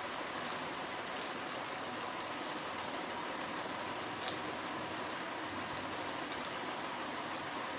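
A plastic courier mailer bag being handled and pulled open, giving a few faint crinkles and one sharp click about four seconds in, over a steady hiss.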